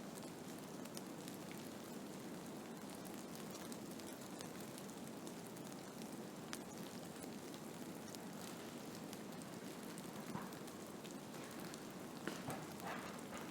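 Blizzard ambience: a steady rushing noise of wind-driven snow, with dense fine ticks of snow striking a surface. A few louder clicks and short wavering sounds come near the end.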